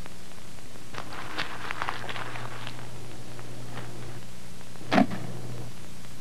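Rustling and small clicks of something being handled, then one sharp knock about five seconds in, over a steady electrical hum.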